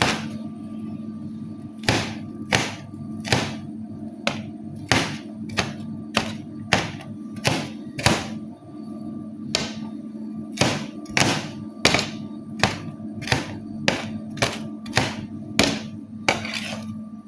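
Kitchen knife chopping garlic on a cutting board: a series of sharp knocks, roughly one to two a second, with a short pause about eight seconds in.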